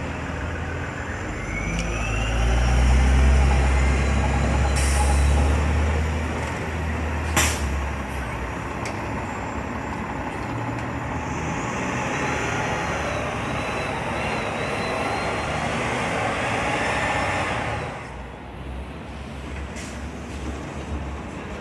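City transit buses pulling away and driving past: a heavy diesel engine rumble that builds and is loudest in the first seven seconds, a short sharp hiss of the air brakes a little over seven seconds in, and rising whines as the buses gather speed. The traffic sound drops off near the end.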